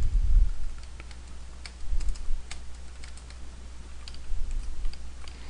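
Computer keyboard keys clicking as a short sentence is typed, in uneven keystrokes a few a second.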